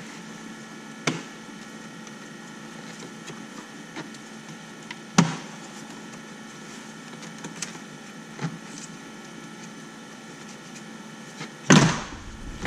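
Plastic dash trim pieces on a Tesla Model Y being pried and handled: a few separate sharp clicks and knocks from the clips and panels, and a louder clatter near the end, over a steady hum.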